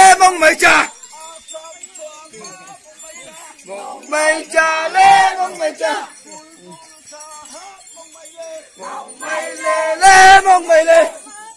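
A procession of Konyak Naga men chanting and shouting together in three loud bursts of about two seconds each, a few seconds apart, with quieter voices in between.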